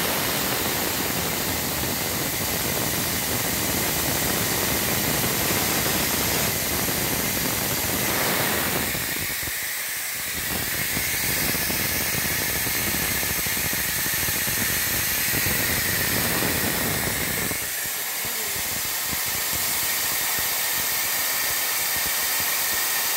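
Steady hiss of a robotic diode-laser welding cell at work, the rush of gas and air jets around the welding head as it welds a steel cylinder, with faint steady high tones; the low rumble under it drops away briefly about ten seconds in and again near the end.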